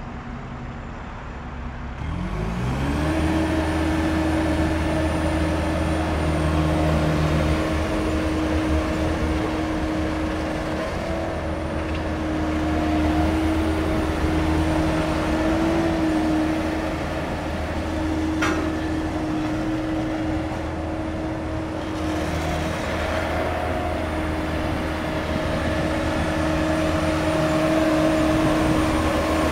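Diesel engine of a Hamm HD 110 double-drum roller running; it rises in speed about two seconds in, then runs steadily.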